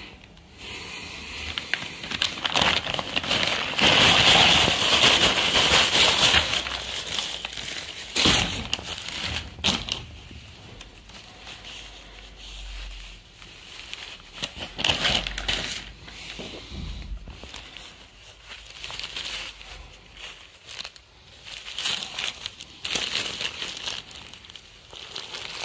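Clear plastic packaging bag crinkling and crackling as it is handled and the shirt is pulled out of it. It is most continuous and loudest in the first several seconds, then comes in shorter crinkly bursts.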